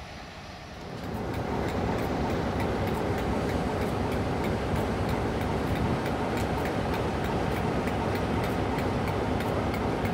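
British Rail Class 47 diesel locomotive's Sulzer twelve-cylinder engine idling steadily, with a light regular ticking about three times a second. It comes in loud about a second in, after a quieter start.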